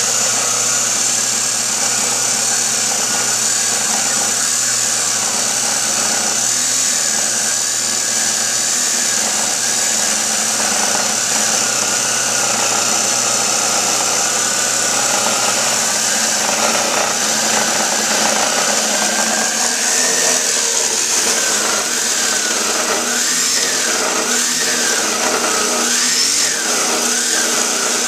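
DeWalt abrasive chop saw running steadily while its cut-off wheel grinds through thick-walled steel gas pipe. It keeps up a constant whine and grinding hiss. Its pitch dips and recovers again and again during the last ten seconds or so as the wheel is pressed into the pipe.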